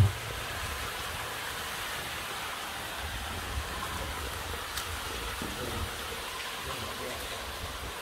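Steady hiss of water running and dripping inside a stone railway tunnel, the sound of groundwater seeping in through the rock.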